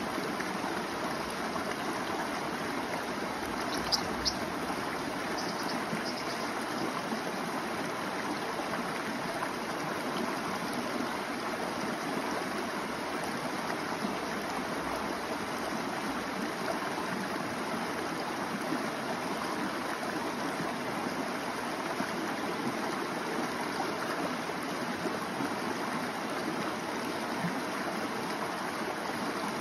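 Shallow mountain creek running over rocks: a steady rush of water. A few brief high ticks sound about four seconds in.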